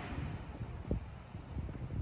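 Wind buffeting the microphone: an uneven low rumble, with a brief thump a little under a second in.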